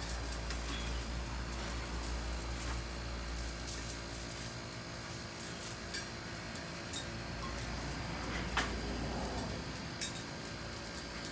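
Steel chain clinking and rattling in irregular bursts as it is wrapped around the base of an anvil.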